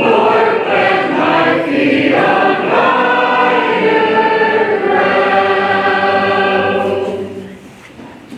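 Church congregation singing the closing hymn a cappella, many voices together on long held notes; the final chord fades away about seven seconds in.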